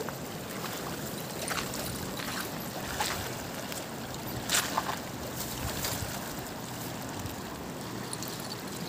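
Steady rush of flowing river water, with a few light clicks as a cast net is handled and dragged over the pebbles.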